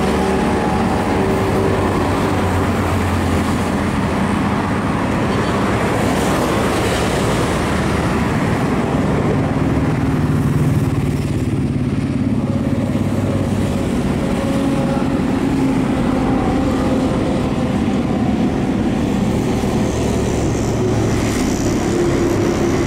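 Steady road traffic on a bridge: engines of passing cars and motorcycles hum and drift in pitch over a constant rumble of traffic.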